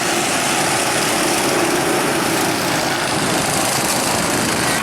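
Small gasoline engines of go-kart-style amusement-park race cars running, a steady engine drone.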